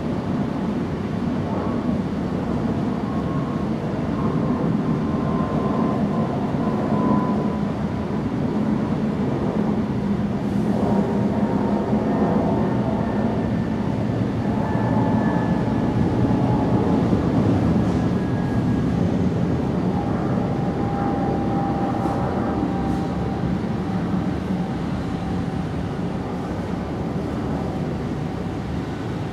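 Steady low mechanical rumble with faint whining tones that slowly slide in pitch.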